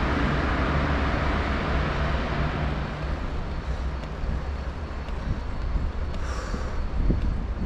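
Wind rumbling on an action camera's unshielded microphone (wind reduction off) while cycling up a mountain road. A passing motor vehicle's noise fades away over the first three seconds or so.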